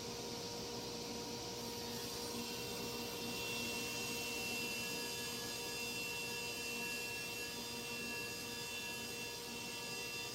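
Table saw running with a steady motor hum; a higher whine joins about two seconds in and fades near the end.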